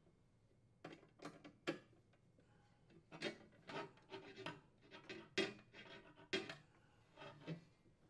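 Faint, irregular clicks and scrapes of a nut driver turning 3/8-inch hex washer screws into a sheet-steel spacer bar and trim bar, with metal parts knocking together.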